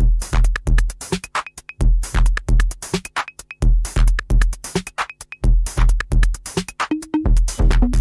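Electronic dance music from a DJ set: a drum-machine beat with a deep kick and crisp hi-hats. The kick drops out about a second in and comes back a couple of seconds later.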